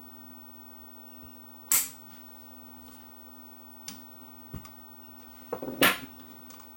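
A few sharp clicks and clinks of small hand tools and parts handled on a workbench while capacitors are being replaced in an old radio chassis. The loudest comes about two seconds in, with a short cluster near the end, over a faint steady hum.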